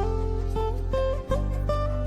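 Background music: a plucked-string instrumental melody on a sape, the Borneo lute, with short plucked notes stepping up and down over a held low bass.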